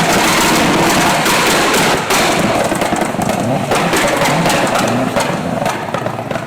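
A loud vehicle engine revving up and down several times through an aftermarket exhaust, with rapid cracks and pops from the exhaust throughout.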